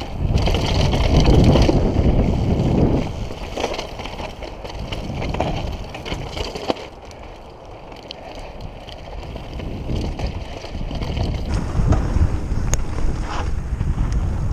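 Wind buffeting the bike-mounted or helmet camera's microphone over the rumble of mountain-bike tyres on a rocky dirt trail during a fast descent, with scattered sharp clicks and knocks from the bike. It is loudest in the first three seconds, eases about halfway through, and builds again after about ten seconds.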